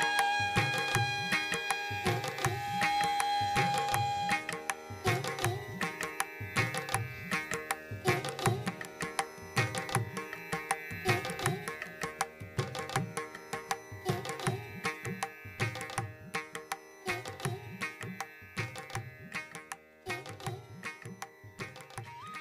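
Background music in an Indian classical style: tabla strokes in a steady rhythm under sustained melodic tones, with a held flute-like note in the first few seconds.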